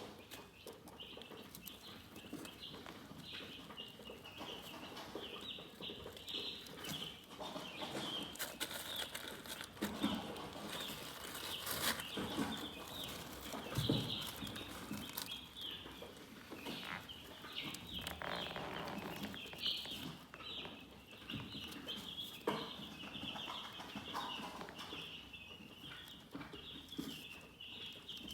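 Chickens chirping continuously, a dense chorus of short, high calls, with scattered rustling and a few soft knocks in between.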